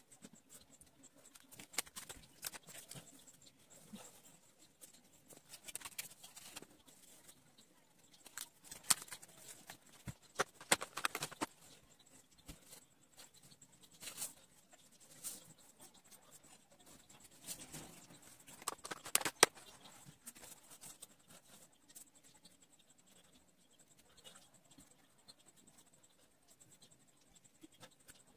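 Felt-tip markers scratching and tapping on drawing paper in short strokes, with occasional sharper clicks from handling the pens. The strokes thin out to faint scratching in the last several seconds.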